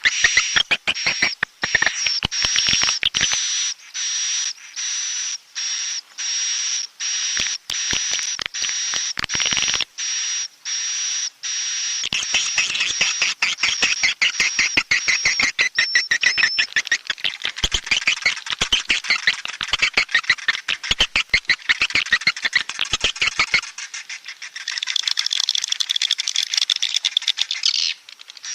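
Edible-nest swiftlet roosting calls ('suara inap'): a swiftlet-house lure recording of dense, rapid, high-pitched twittering chirps. In the first half the chirping comes in pulses about once a second over a thin steady high tone, then runs on continuously.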